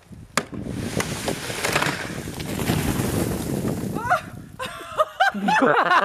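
A knock of a shovel on packed roof snow, then a mass of snow sliding off the roof and dropping with a long rushing hiss. Near the end, laughter breaks out.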